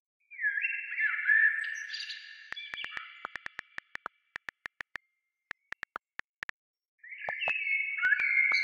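Synthesized chirping tones that slide in pitch, then a quick run of sharp clicks, then the chirping tones again near the end; an added electronic sound track rather than live sound.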